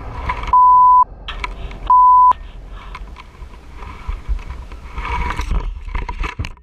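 Two censor bleeps, steady pure tones about half a second each, in the first two and a half seconds, most likely covering the crashed rider's swearing. Rustling and scattered knocks follow as the fallen rider and bike move in the roadside brush.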